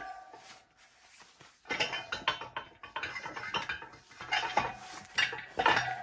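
Metal tire tools clinking and scraping against a motocross wheel rim while a tire is worked off: quiet at first, then from about two seconds in a busy run of sharp metallic clinks with a short ring, the loudest near the end.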